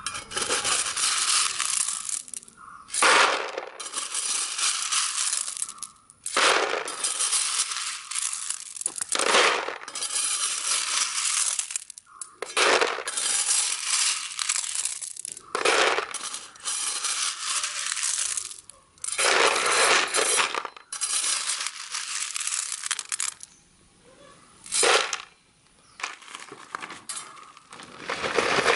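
A steel trowel scraping and scooping crushed-stone gravel, the stones rattling and clinking. A louder clatter of stones comes about every three seconds.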